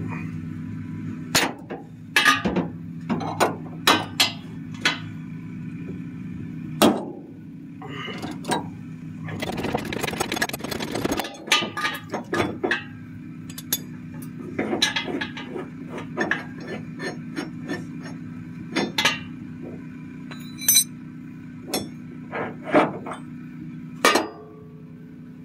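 Steel lowering-shackle hardware and hand tools clinking and knocking as a shackle and its bolt are fitted to a pickup's rear leaf-spring hanger: scattered sharp metal clicks and knocks, with a steady low hum underneath.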